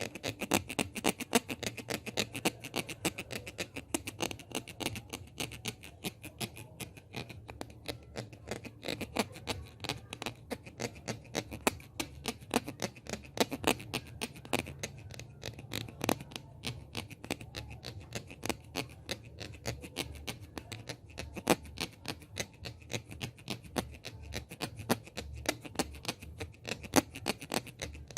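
Hands making ASMR sounds close to a microphone: rapid, irregular crackly taps and rubbing, several a second, over a steady low hum.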